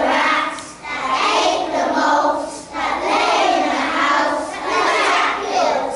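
A group of young children's voices in unison, performing in short phrases with brief breaks between them.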